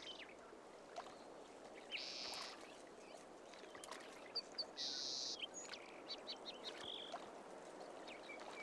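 Faint natural outdoor ambience with a soft steady background hiss, broken by scattered small bird chirps and two short, high buzzy trills about two seconds in and about five seconds in.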